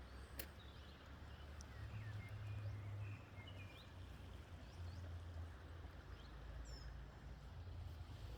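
Faint outdoor woodland ambience: a steady low rumble of wind on the microphone, with scattered short, high chirps from small birds and a single click about half a second in.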